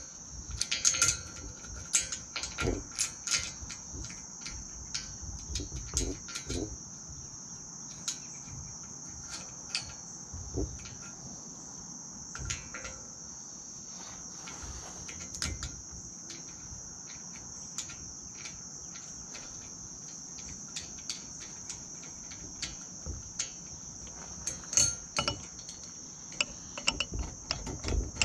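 Insects buzzing steadily at a high pitch, with scattered small metal clicks and taps as spring nuts and bolts are handled and fitted into a strut channel, busiest near the start and again about 25 seconds in.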